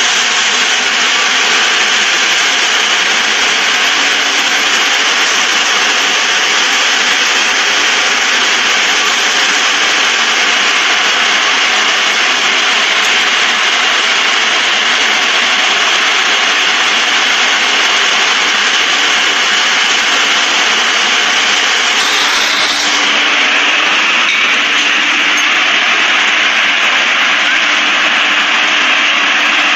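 Steady loud rushing noise at a working house fire, with a faint low hum under it, changing briefly about three quarters of the way through.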